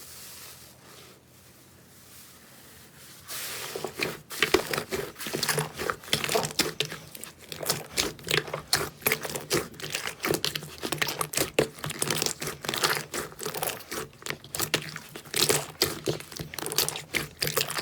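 Slime being squished and pressed by hand, giving dense, irregular crackles and pops that start about three seconds in.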